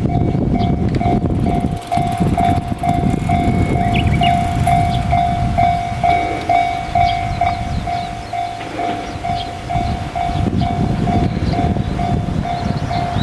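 Japanese railway crossing alarm of the JR standard type, an electronic ding repeating at about two strokes a second, sounding over the rumble of a train running through the crossing.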